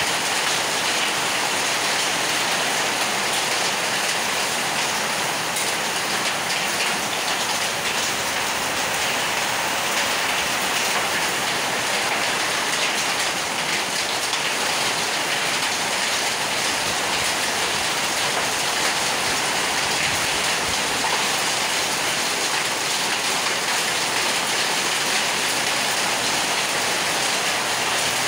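Heavy downpour of rain mixed with small hail, a steady dense hiss of drops and pellets striking paving, water and surfaces, with fine ticks of individual hits throughout.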